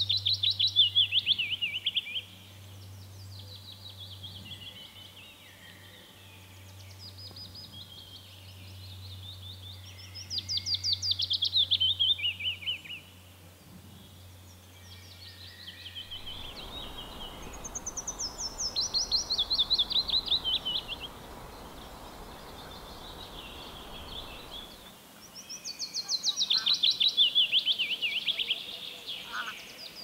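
Willow warbler singing: a sweet run of quick notes that falls steadily in pitch over about two to three seconds, repeated four times, with fainter song phrases in between.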